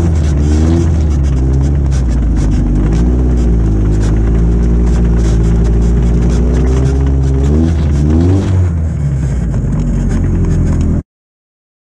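Off-road race buggy's engine running at low speed, heard from on board: its pitch rises and falls gently with a couple of quick throttle blips. The sound cuts off suddenly near the end.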